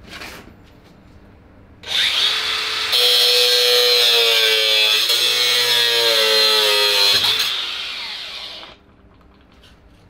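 Handheld angle grinder spinning up about two seconds in and cutting steel for about four seconds, its pitch sagging slightly under the cut, then spinning down.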